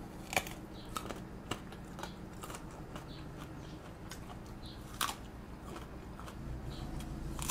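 Crunchy bites and chewing of a raw Thai eggplant: a few sharp crunches in the first second and a half, another about five seconds in, with quieter chewing in between.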